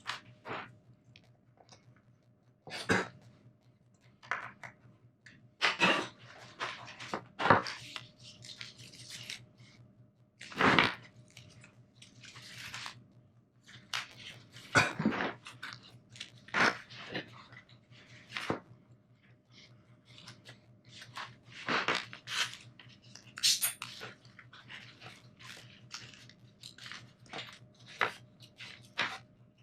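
Scattered sharp clicks, knocks and scrapes at irregular intervals, over a faint steady hum.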